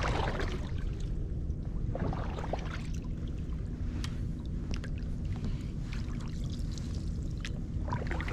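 Canoe being paddled across shallow water, with the paddle blade dipping and dripping and scattered small splashes and clicks over a steady low rumble.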